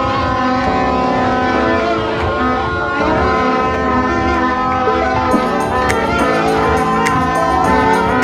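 Loud music with long held chords that change every second or so, and a few sharp hits in the second half.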